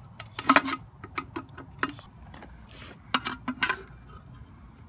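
A quick, irregular series of sharp clicks and light knocks, in two clusters, from hard objects being handled, with one short hiss a little before the three-second mark.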